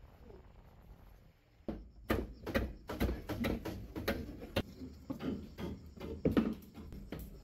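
Hand saw cutting bamboo, with rhythmic back-and-forth strokes, about two or three a second, starting just under two seconds in.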